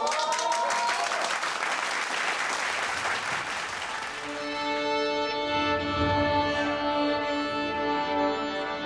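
Orchestral intro music: a rushing, noisy swell for about the first four seconds, then a sustained chord of held string tones.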